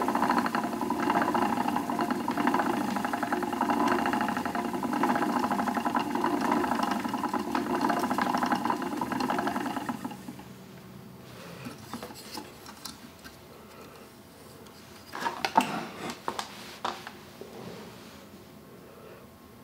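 Wooden treadle spinning wheel running: a steady, finely rhythmic whir and clatter from the wheel, flyer and pedal as wool is spun. About ten seconds in it becomes much quieter, leaving a few light wooden knocks and clicks.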